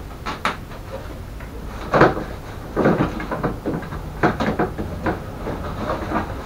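Hard plastic rear body shroud of a mobility scooter being gripped, shifted and lifted off the frame: a string of irregular knocks, clunks and rattles, the loudest about two seconds in.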